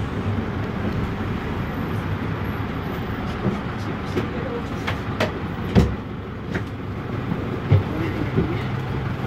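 Otokar M-2000 minibus's air-cooled Deutz F4L912 four-cylinder diesel running with a steady low rumble, heard inside the cabin as the bus creeps along, with cabin rattles and a few sharp knocks near the middle.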